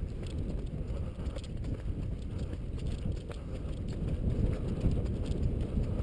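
Wind buffeting the microphone as a dense low noise, with irregular footsteps crunching over branches and wood debris.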